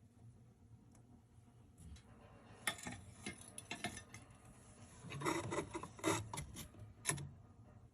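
Faint, irregular scraping and rubbing with a few light knocks, clustered around the middle and the last few seconds, typical of something being handled.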